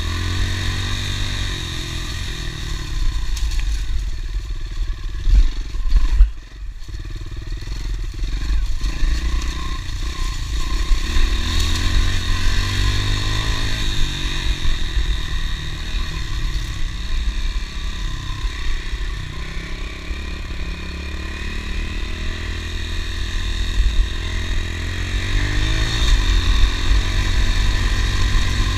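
Honda CRF110 pit bike's small single-cylinder four-stroke engine running while being ridden, the revs rising and falling with the throttle and dropping briefly about six seconds in.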